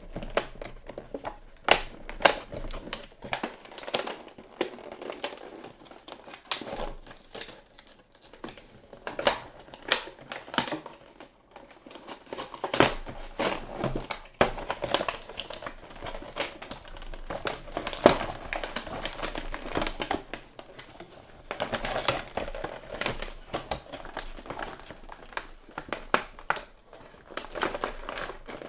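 Action-figure packaging being handled and opened: crinkling and rustling of plastic and cardboard, broken by many irregular sharp clicks.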